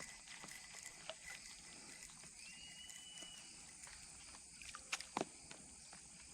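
Quiet riverside ambience with a steady high insect drone, a brief faint whistle midway, and scattered small clicks, two louder sharp clicks about five seconds in.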